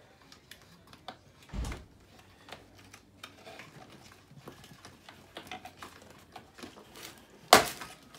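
Hands cutting the plastic ties that hold an RC car in its cardboard shipping box: scattered small clicks and rustles, a dull thump about one and a half seconds in, and a loud sharp snap near the end.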